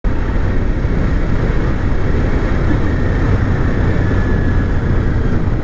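Onboard sound of a sport motorcycle riding in traffic: a steady rush of wind on the helmet-mounted microphone over engine and road noise.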